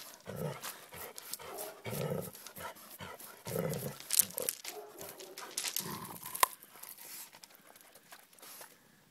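Doberman making about four short, low vocal sounds at a hedgehog curled into a ball, a second or two apart. Loose gravel crunches and clicks underfoot, with a few sharper clicks in the middle of the stretch.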